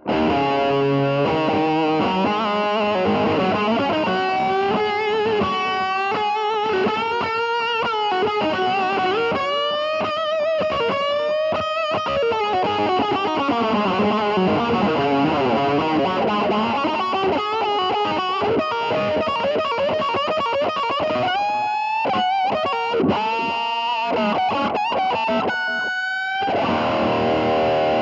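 Overdriven electric guitar lead solo: a PRS Hollowbody II through a Tube Screamer and a boosted Brute Drive with a little delay, played as fast runs with many string bends and vibrato. Near the end it settles on a held note that rings out.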